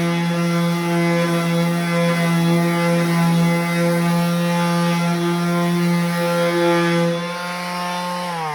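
Cordless brushless electric sander running at a steady pitch while sanding paint. Near the end it is switched off and its pitch falls as it winds down.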